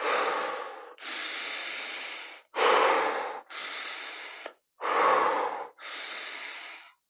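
A man taking slow, deep breaths in and out, about three full cycles. Each cycle is a quieter, steady breath followed by a louder one that fades away.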